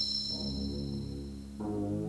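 Brass ensemble playing held low chords, with a new, fuller chord coming in about a second and a half in. A high ringing tone fades away during the first second.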